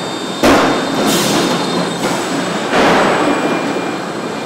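Assembly-line floor conveyor moving a bare steel car body along its rails: a steady metallic rolling and rattling, with sudden loud clanks about half a second in and near three seconds and a high squealing burst about a second in.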